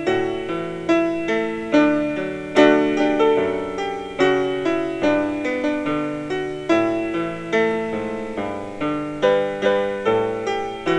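Solo piano playing a slow hymn accompaniment, with notes and chords struck about once or twice a second and left to fade.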